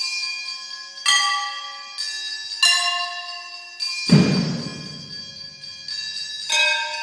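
Struck metal percussion: separate hits about a second apart, each ringing on with bell-like overtones, and a louder, deeper thud about four seconds in.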